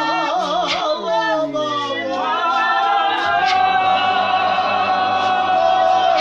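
A church choir of men and women singing together. The notes waver with wide vibrato at first, and about two seconds in the voices settle onto a long held chord.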